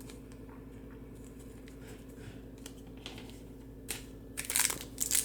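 Trading cards being handled and flicked through, with light clicks and taps. Near the end comes louder crinkling of a card pack wrapper.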